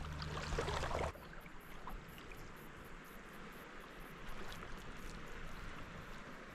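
Soft, steady wash of calm estuary water lapping at a sandy bank, with a few faint ticks. A louder rushing noise in the first second cuts off abruptly.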